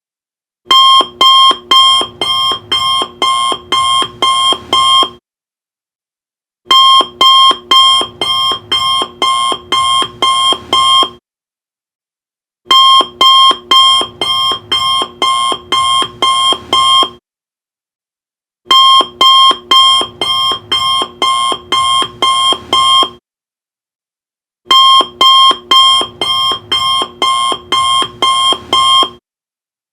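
Alarm clock going off in five bursts of about four and a half seconds. Each burst is a fast string of about a dozen pulses, with pauses of about a second and a half between bursts.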